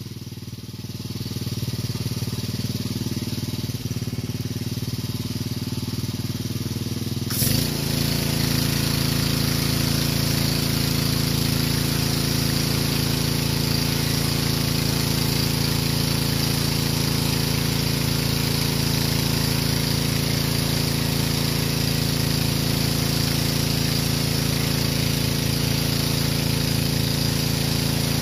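Pressure washer engine running steadily; about seven seconds in the spray starts with a sharp onset, and a loud, even hiss of water jetting onto vinyl siding joins the engine, which then runs louder and steady under load.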